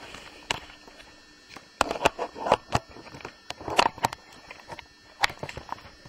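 Irregular knocks and taps, about a dozen scattered over several seconds, some with a short rustle.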